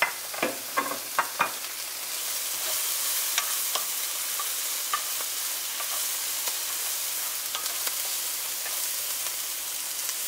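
Sliced onions frying and sizzling in a non-stick skillet, stirred with a wooden spoon. About five sharp clicks come in the first second and a half, then a steady sizzle that grows a little louder, with scattered small ticks and scrapes.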